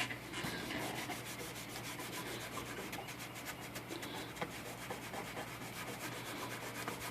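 Rapid back-and-forth rubbing on the painted metal body of a Smith Corona typewriter, working bore cleaner into hardened old masking tape stuck to it.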